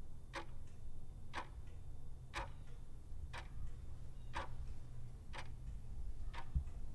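Countdown-timer sound effect ticking like a clock, one tick a second, over a low steady hum.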